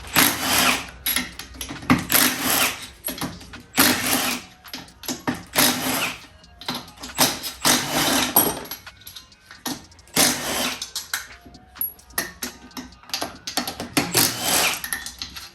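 Hand tool work loosening the 12 mm bolts around an H22 Prelude gearbox casing: short bursts of rapid mechanical ticking, one after another, each about a second long, as bolt after bolt is undone.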